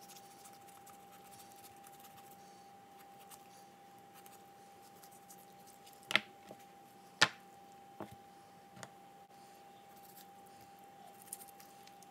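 Knife work on a raw Cornish Cross chicken on a plastic cutting board: a few sharp knocks and clicks from the blade, board and carcass, bunched between about six and nine seconds in, with a faint steady hum underneath.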